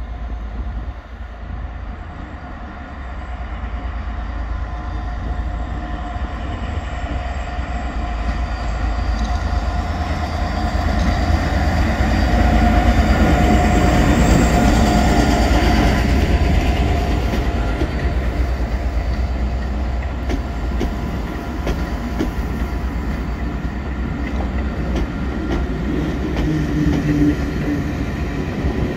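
A West Coast Railways diesel locomotive hauling the Northern Belle coaches slowly past. The engine and rumble build to their loudest about halfway through as the locomotive passes, then the coaches' wheels rumble and click over the rail joints.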